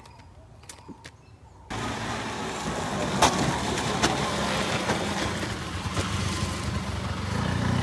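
A motor vehicle engine running steadily, starting abruptly about a second and a half in, with a few sharp clicks over it.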